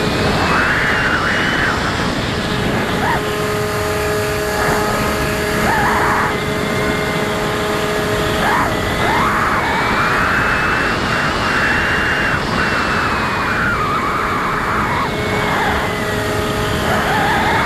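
Electric motor and propeller of a Bixler foam RC plane in flight, heard from a camera on the airframe: a high whine that slowly rises and falls with the throttle over a steady rush of air.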